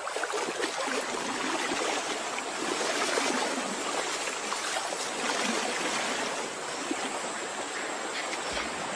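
Steady rushing and splashing of river water, with a short low thud near the end.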